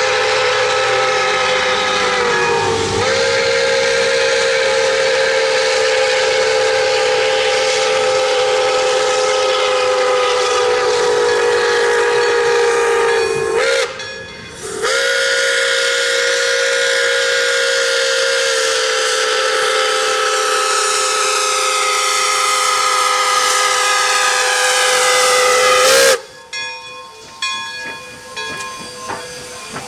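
Pere Marquette 1225, a 2-8-4 Berkshire steam locomotive, blowing its chime steam whistle for the grade crossing in two very long blasts with a short break about 14 seconds in; the pitch sags briefly as each blast opens. Near the end the whistle cuts off and the engine rolls past with clanks and clicks of its wheels and running gear over the crossing.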